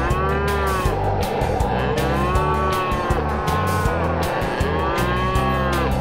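A calf held down on the ground bawling several times, each bawl rising then falling in pitch, over background music with a steady beat.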